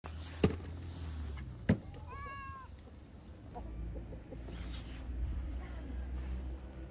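A domestic cat meows once, a short call of about half a second a couple of seconds in. Two sharp clicks come just before it.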